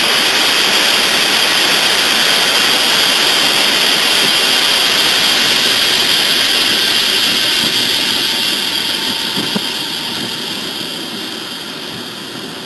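Steady rushing noise of a diesel locomotive under way, heard from its front end: engine and wind noise mixed, with a bright hiss high up. It eases off gradually over the last few seconds.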